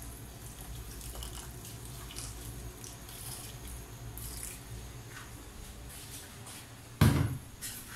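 Hot water pouring from an electric kettle into a pot of soup, a steady trickling splash. Near the end, one loud knock.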